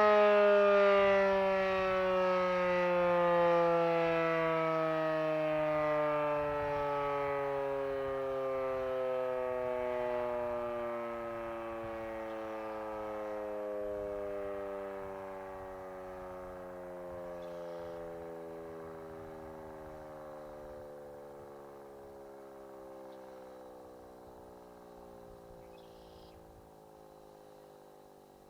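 Federal Signal Model 5 mechanical outdoor warning siren winding down at the end of a test. Its tone slides slowly and steadily lower and fades away as the rotor coasts to a stop.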